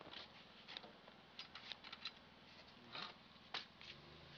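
Faint, scattered light clicks and taps as a pneumatic framing nailer and wooden studs are handled and lined up on a wall frame.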